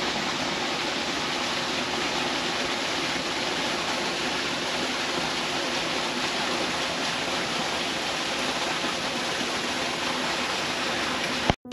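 Small garden waterfall splashing over rocks into a shallow stream: a steady rush of falling water that cuts off abruptly at the very end.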